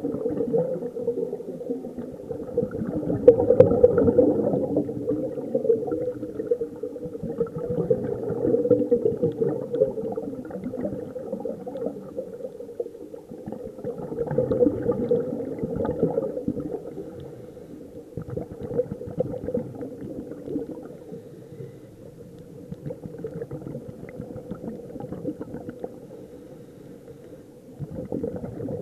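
Scuba divers' exhaled breath bubbling and gurgling out of their regulators, recorded underwater. The bubbling comes in surges every few seconds and is quieter in the last third.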